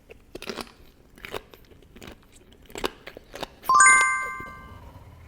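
Crunchy chewing of cannonball jellyfish, a string of crisp crunches and mouth clicks. About three and a half seconds in, a bright chime rings once and fades over about a second.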